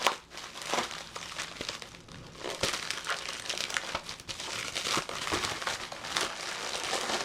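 Packaging crinkling and rustling as a package is opened by hand, with many quick irregular crackles throughout.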